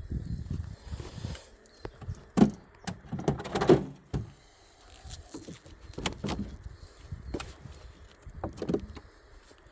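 Wooden beehive frames and boxes being handled: irregular knocks, clicks and scraping, loudest about two and a half and three and a half seconds in.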